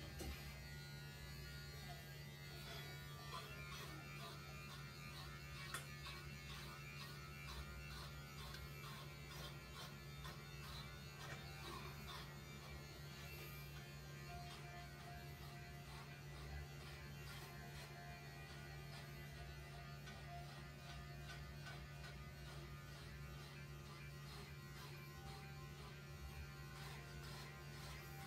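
Electric pet hair clippers running with a steady buzz while shaving a cat's fur short.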